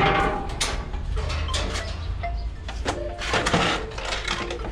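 Metal cage door and latch clattering, with a string of irregular knocks and clicks.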